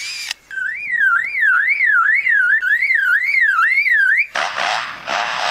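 Superb lyrebird mimicking a car alarm: a wailing tone that sweeps up and down about twice a second. Just past four seconds in, it breaks off into a harsh, rasping noise.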